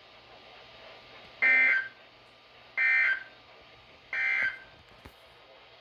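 Emergency Alert System end-of-message signal: three short bursts of buzzing two-tone digital data, evenly spaced about 1.3 seconds apart, closing the broadcast flash flood warning.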